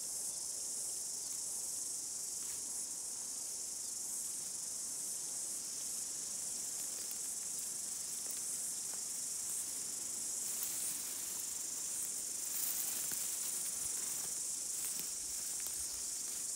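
Steady, high-pitched chorus of insects, unbroken throughout. Faint rustles in the grass come and go from about ten seconds in.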